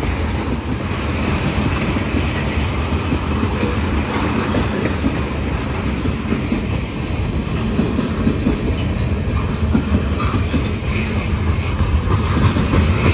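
Freight train rolling past: the cars' steel wheels clacking on the rails over a steady low rumble.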